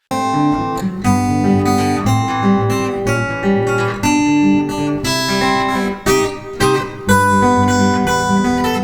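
Guitar playing a run of chords, a new chord or note group struck every half second to a second, each left to ring.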